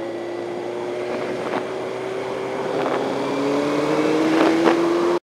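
Motorcycle engine running at highway speed, its note creeping slowly upward, under wind rushing over the microphone. A second, lower engine tone joins about three seconds in, and the sound cuts off abruptly near the end.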